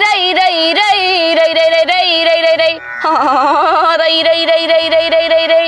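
A woman singing a folk song, holding long drawn-out notes with a wavering vibrato. The voice drops out briefly about three seconds in, then takes up another long held note.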